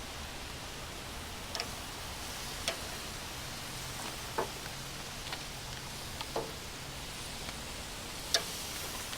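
Chicken and bell peppers sizzling on a hot grill: a steady hiss, with a few sharp clicks scattered through it.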